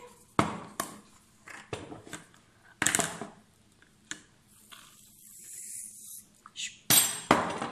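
Aerosol shaving-cream can: a few clicks and knocks as it is handled, then the nozzle pressed and foam hissing out for about a second and a half. Two loud knocks near the end.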